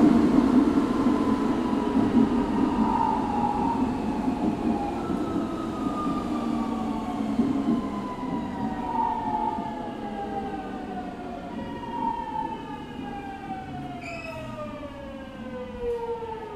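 Hitachi GTO-thyristor VVVF inverter of a Kobe Municipal Subway 1000-series train, heard on board over the wheel-and-track rumble. Its whine is several tones falling steadily in pitch together, the sound of the train braking. Overall loudness sinks as the train slows.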